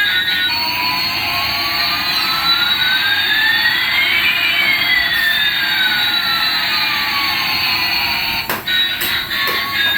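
Electronic jet-engine sound effect of a toy airliner: a steady rushing whoosh with one whistling tone slowly rising and another slowly falling, the two crossing midway. It cuts off about eight and a half seconds in, with a few sharp clicks.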